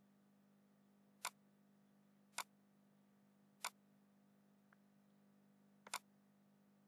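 Computer mouse button clicking four times, about a second apart, with a faint tick between the third and fourth and a quick double click near the end, over a faint low hum.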